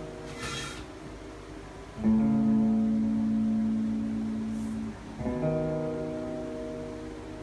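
Background music: acoustic guitar chords strummed and left to ring, with a new chord about two seconds in and another about five seconds in.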